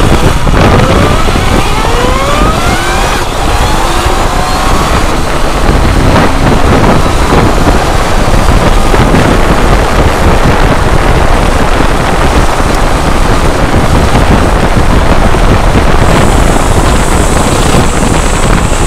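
Wind buffeting hard on an on-board camcorder microphone at road speed, over a BMW K1200R Sport's inline-four engine. The engine rises in pitch as the bike accelerates through the first few seconds.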